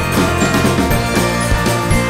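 Background music with a steady drum beat and sustained instrumental tones.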